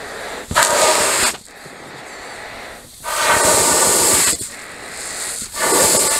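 A man blowing hard into the cuff of a neoprene wetsuit jacket sleeve to inflate it. He gives three long blows, with quieter breathing between them. He is testing how far the lined, open-cell (microporous) neoprene of the Pathos Coral suit will stretch.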